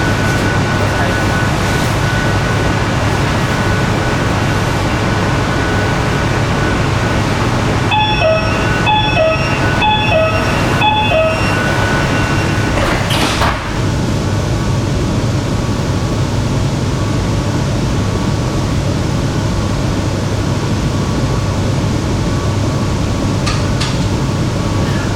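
Shenzhen Metro Line 14 train standing at a station with a steady low hum. About eight seconds in, the door-closing warning beeps sound in a quick repeated series for about three and a half seconds, and then the sliding doors shut with a thud.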